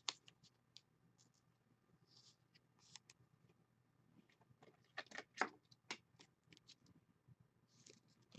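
Mostly near silence, broken by scattered faint clicks and soft rustles as a trading card is handled and fitted into a plastic penny sleeve and rigid top loader. The clicks cluster about five to six seconds in.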